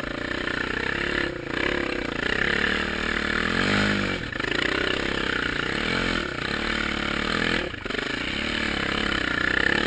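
Suzuki LTZ400 quad's single-cylinder four-stroke engine running as it rides through deep snow, its pitch rising and falling with the throttle, most clearly about four and six seconds in.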